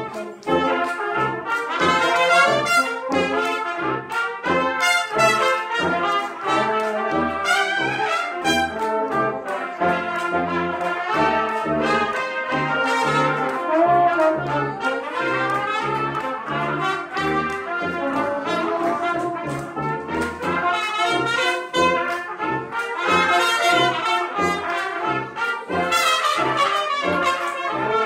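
Live brass ensemble of trumpets, French horn, trombone and tuba playing a lively piece, the tuba sounding short repeated bass notes under the trumpets' melody.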